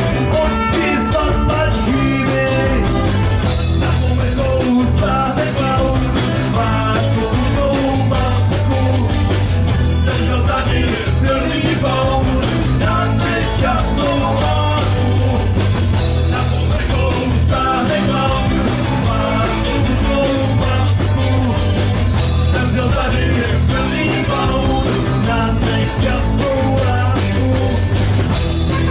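Live rock band playing with electric guitars and bass guitar, and a voice singing over them.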